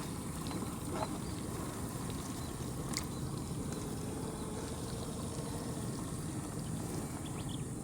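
Steady low rumble of running water around a boat, with a couple of faint knocks.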